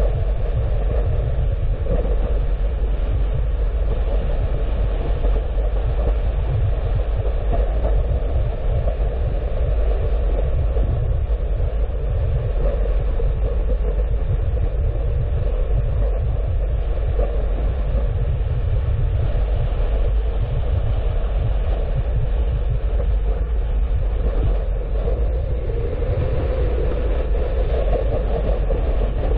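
A car driving on the road: a steady low rumble of tyres and engine that does not let up.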